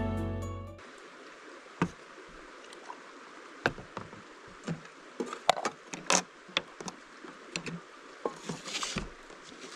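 Background music ending about a second in, then scattered light clicks and knocks of utensils and dishes on a metal camp table over a faint steady hiss, with a milky drink poured from a plastic bottle into a metal cup.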